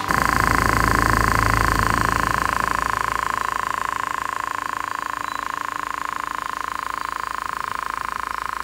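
Small DC motor spinning a mini helicopter's propeller: a steady high buzz that starts suddenly, is loudest for the first couple of seconds, then settles slightly quieter.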